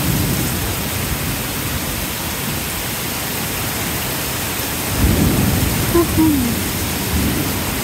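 Torrential rain falling steadily and pouring off overflowing gutters, with a low rumble of thunder swelling about five seconds in and again more faintly near the end.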